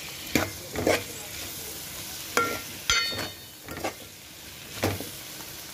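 Steel ladle stirring potato and tomato curry frying in oil in a steel pan, over a steady sizzle. About six scrapes and clinks of ladle on pan, one ringing briefly about three seconds in.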